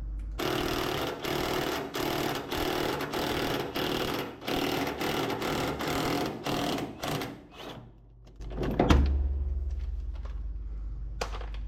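Impact wrench hammering a tight threaded ball joint into the front suspension in a string of short bursts, stopping about eight seconds in. A single knock follows about a second later.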